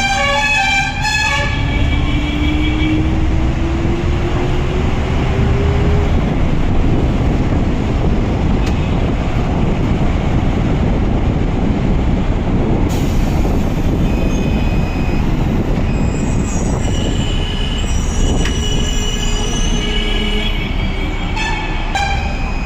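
Electric metro train running on its track, with a steady heavy rumble. Its motor whine rises in pitch over the first six seconds as it accelerates. High wheel squeals come in and out in the last third.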